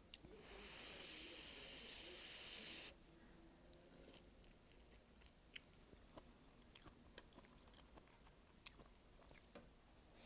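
Eating malatang: a steady breathy hiss lasting about two and a half seconds that stops abruptly, then faint chewing with scattered soft clicks and smacks.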